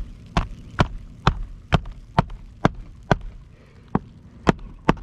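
Hammer striking a roofing nail through a shingle, a steady run of sharp blows about two a second with a brief pause partway through.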